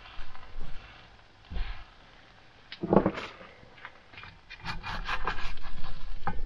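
Tongs and a spatula scraping and knocking against a skillet as an omelet is turned, with a few sharp clicks about three seconds in and a run of quick scraping strokes near the end.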